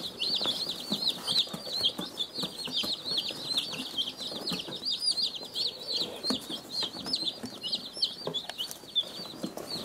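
A brood of Cornish Cross broiler chicks peeping nonstop: many short, high, downward-sliding peeps overlapping into a dense chorus, with scattered light taps and rustles.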